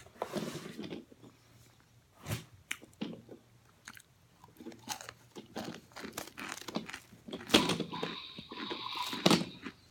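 Crisp crunching of oven-baked cornstarch chunks being bitten and chewed: a scattered series of sharp cracks with quieter chewing between them.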